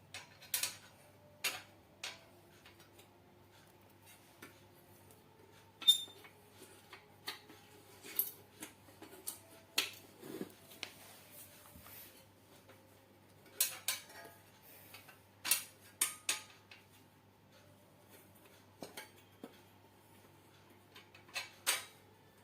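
Irregular metallic clinks and taps of small hardware and hand tools being handled: bolts and washers used as shims while a motor is fitted to its mount. The sharpest clink comes about six seconds in.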